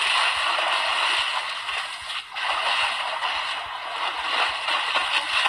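A large hooked fish thrashing at the water's surface, with continuous splashing and sloshing that dips briefly about two seconds in.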